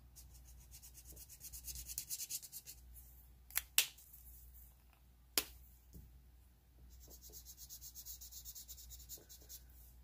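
Alcohol marker tip rubbing over glossy photo paper in quick short strokes, colouring in a drawing, with a few sharp clicks in the middle.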